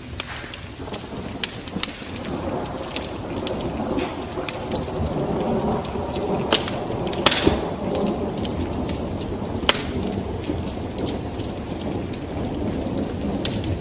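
Wood fire burning in a fireplace: a steady low rumble of flames with frequent sharp crackles and pops at irregular intervals, one louder hissing pop about seven seconds in.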